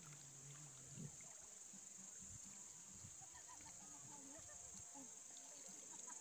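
Near silence: faint outdoor ambience with a steady high-pitched hiss and a few scattered faint short sounds.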